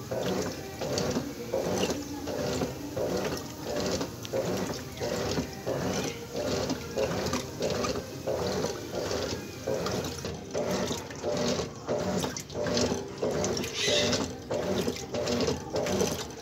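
Top-loading washing machine agitating a load of clothes in water: the agitator swishes back and forth in a steady rhythm, roughly two strokes a second, with the water sloshing.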